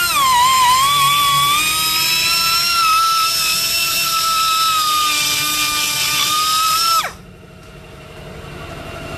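Straight die grinder with a carbide burr whining at high speed as it grinds out a stuck bolt and nut in a car's underbody. The pitch sags as the burr bites near the start, then holds steady. About seven seconds in it stops abruptly, the whine falling away.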